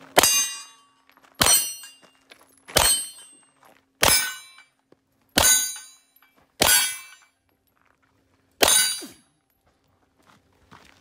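Seven pistol shots at steel targets, each sharp report followed by the bright ring of the struck steel plate. They come about every second and a quarter, with a longer gap before the last.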